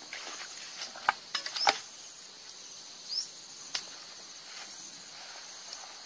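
A steady high-pitched chorus of crickets or similar insects. A short rising chirp comes back every second and a half or so, and a few sharp clicks land between one and two seconds in and again just before four seconds.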